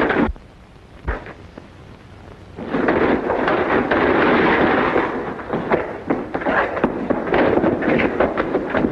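Gunfire in a film shootout: many shots cracking close together over dense, noisy action. There is a brief lull of about two seconds near the start.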